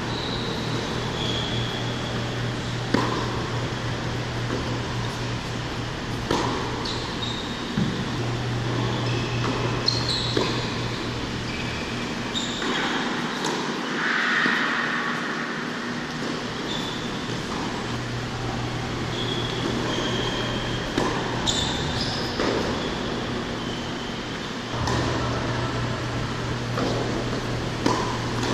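Tennis rally on an indoor hard court: sharp hits of racquet strings on the ball and ball bounces every few seconds, with short high squeaks of tennis shoes on the court surface. A steady low hum runs underneath and drops out briefly twice.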